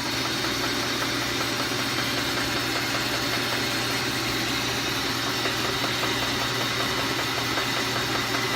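Steady, even hum of the Brown & Sharpe 3A universal milling machine's electric drive running, with no cutting noise, knocks or changes in pitch.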